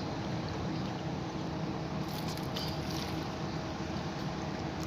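Steady low hum over an even background hiss, with a few faint clicks about two seconds in.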